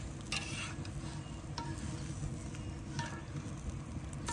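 Pancake batter sizzling steadily on a large muurinpohja griddle pan over a wood fire, with a few light clicks.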